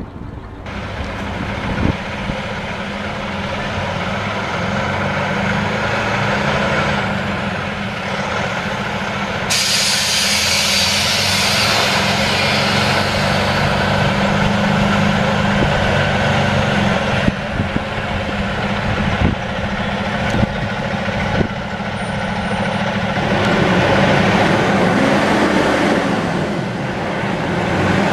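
Semi truck's diesel engine running steadily, with a sudden loud hiss of air from its air brakes about a third of the way in that fades over a few seconds.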